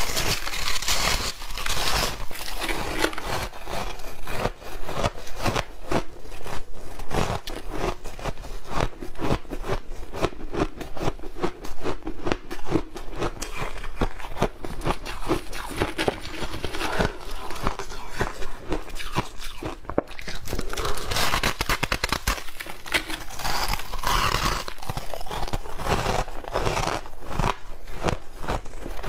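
Refrozen shaved ice being bitten and chewed: many crisp crunches in quick succession.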